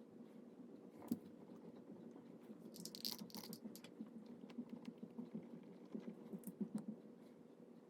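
Faint small handling sounds at a desk: light tapping and pattering, a sharper click about a second in, and a brief rustle about three seconds in.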